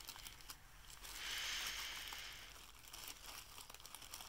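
Faint crinkling and rustling of a clear plastic bag and the bait packets inside it being rummaged through by hand, swelling for a second or so a little after the start, with a few small ticks.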